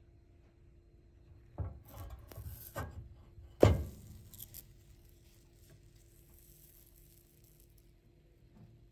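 A silicone spatula scraping and knocking under a pancake in a small nonstick pan, then a sharp slap about three and a half seconds in as the pancake is flipped and lands browned side up, followed by a faint sizzle that dies away.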